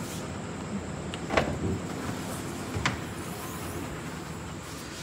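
A Maruti Suzuki Baleno's tailgate being unlatched and lifted open: a sharp latch click about a second and a half in, then a second knock about a second and a half later, over a steady low hum.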